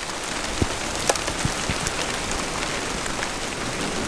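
Steady rain falling in a thunderstorm, with scattered sharp ticks of drops landing close by.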